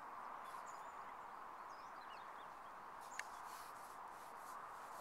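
Faint outdoor ambience: a steady hiss with a few short, faint bird chirps scattered through it, and a single sharp click a little past halfway.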